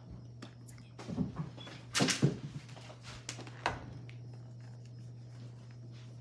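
A few knocks and clicks of a plastic motorcycle helmet and small mounting parts being handled on a table, the loudest about two seconds in, over a steady low hum.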